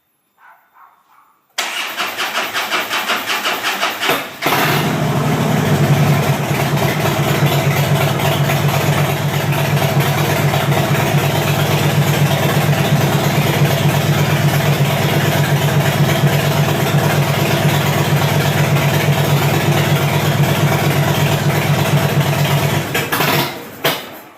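2010 Harley-Davidson Fat Bob's V-twin on a hard start: the electric starter cranks with a rhythmic chug for about three seconds, breaks off, and then the engine catches and runs steadily before stopping near the end.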